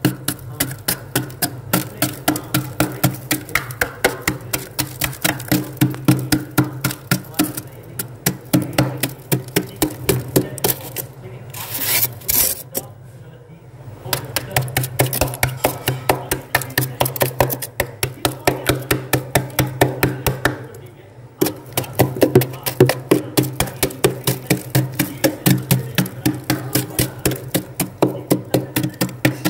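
Knife blade scraping thick built-up frost off a freezer wall in fast repeated strokes, about three a second, pausing briefly a couple of times.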